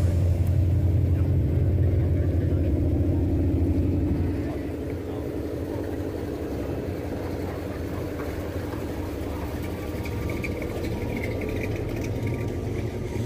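A car engine idling, a steady low rumble that drops back to a quieter level about four seconds in.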